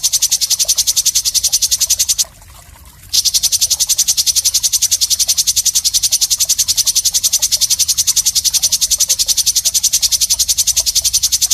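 A recorded animal call used as songbird-training material: a rapid, even train of high-pitched pulses. It breaks off for under a second about two seconds in, then resumes unchanged.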